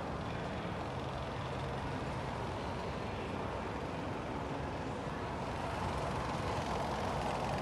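A 1970s Otis escalator running, heard from its moving steps: a steady mechanical hum and rumble that grows a little louder about six seconds in, as the bottom landing nears.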